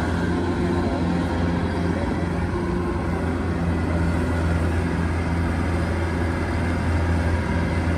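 Kubota DC-105X rice combine harvester's diesel engine running steadily with a deep, even drone as the tracked machine works through a muddy, flooded paddy.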